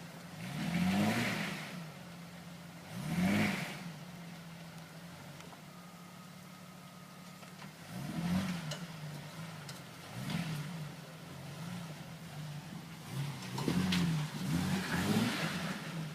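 Vehicle engine idling, revved in short bursts about six times, each rev rising and falling back to idle. This is typical of a vehicle being bumped over rocks on a trail.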